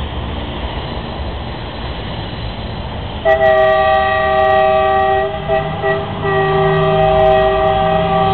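Diesel multiple unit railcar sounding its horn: after a low rumble, about three seconds in, a long blast of several notes at once starts, breaks off briefly in the middle, then is held again.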